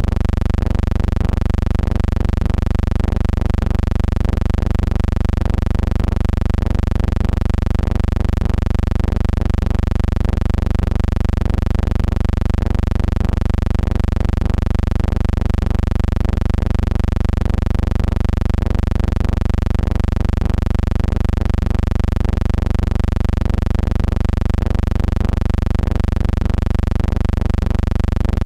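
Steady low electrical hum with a stack of even overtones and a slight regular pulse, unchanging throughout.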